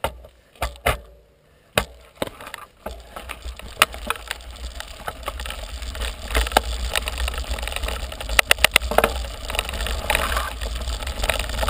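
Mountain bike rolling on a gravel road: tyres crunching over loose stones, with rattling clicks from the bike and a low rumble. A few separate knocks and clicks in the first couple of seconds before the steady rolling noise builds.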